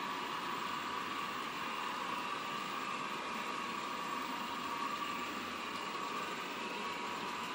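Sound-fitted N scale Class 50 model diesel locomotive, its small onboard speaker playing a recorded English Electric V16 diesel engine running steadily as the train moves, with a constant higher tone over the engine noise.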